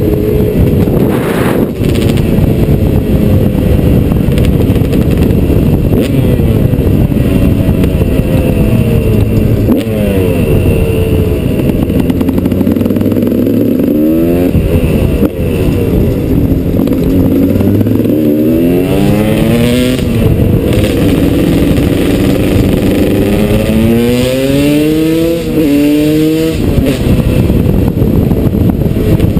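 KTM 200 EXC supermoto's two-stroke single-cylinder engine running under way, heard from the bike itself. Several times the revs climb and drop back in steps as it pulls up through the gears.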